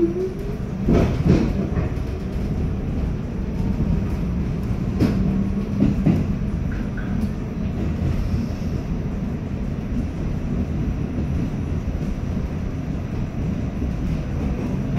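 R46 subway car running on the track, heard from inside the car: a steady low rumble with a few sharp knocks from the rails in the first six seconds. A short rising whine sounds right at the start.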